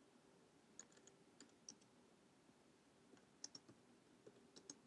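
Faint computer keyboard keystrokes, a few short clicks at uneven intervals, as the words "go back to tour" are typed.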